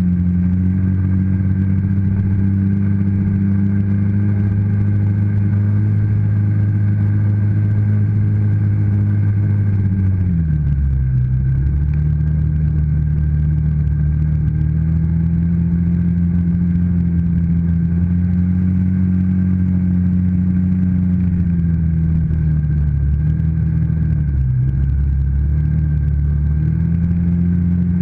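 ATV engine running while riding, its note holding steady, dropping as the machine slows about ten seconds in, then climbing again, with another brief dip and rise near the end.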